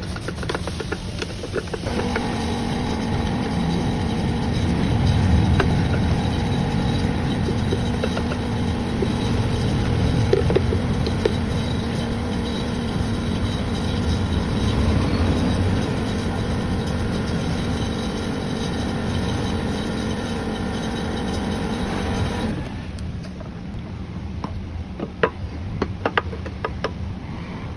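A motor-driven machine running steadily with an even hum and whir. It starts about two seconds in and cuts off suddenly near the end, leaving a low rumble and a few clicks.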